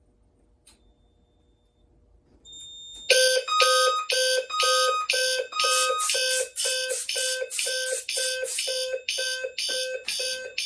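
Fire alarm sounder bases, a low-frequency sounder base and the sounder base under a Notifier SK-Photo-W smoke detector, start sounding together about three seconds in. They pulse in march time, roughly three beats a second, signalling that the detector has gone into alarm on test smoke. Before they start it is near silent.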